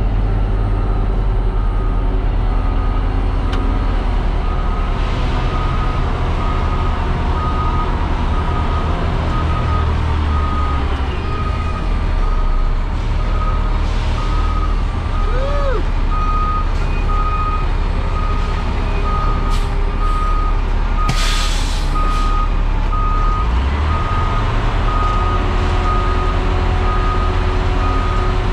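Concrete mixer truck's diesel engine running, with a reversing alarm beeping steadily about once a second as a truck backs under the batch plant to load. About two-thirds of the way through there is a short hiss of air from the air brakes.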